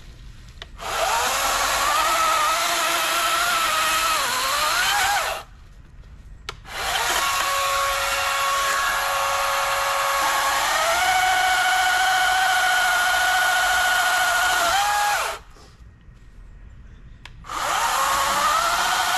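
Wild Badger 40V brushless battery chainsaw cutting through a fallen pine branch in three runs, with short pauses between them. Its high electric motor whine shifts and dips in pitch as the chain bites into the wood.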